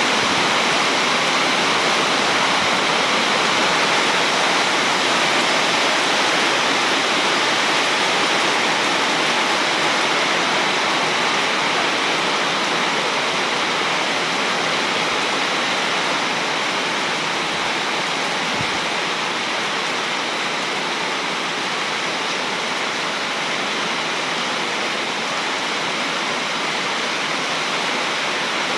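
Heavy rain pouring down steadily as a dense, even hiss, with no thunder in this stretch.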